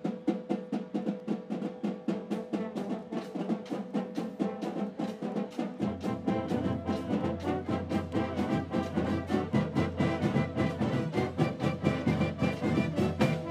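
Marching band playing: a fast, even drum beat under brass and saxophones, with a low bass line coming in about six seconds in.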